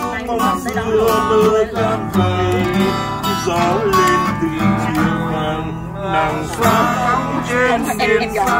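Music played on guitar: a moving melody line over sustained low notes.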